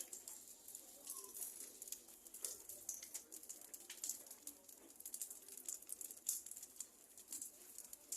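Faint crackling of a bonfire, with irregular sharp pops and snaps.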